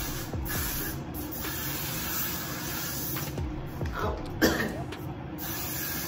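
Got2b Glued aerosol hairspray hissing in several bursts as it is sprayed onto the hair.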